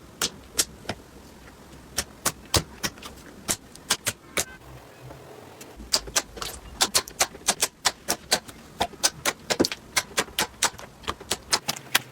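Slime being pressed and worked by hand, giving sharp, crisp pops and crackles that are spaced out at first and come quickly from about halfway through.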